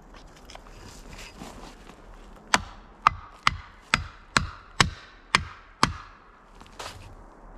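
Eight axe strokes chopping into wood, about two a second, chipping away at a hung-up tree's trunk to free it.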